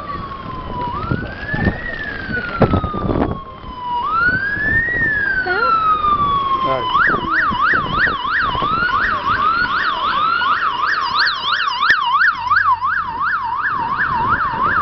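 Emergency vehicle siren sounding a slow rising-and-falling wail, then switching about seven seconds in to a fast yelp of about three sweeps a second.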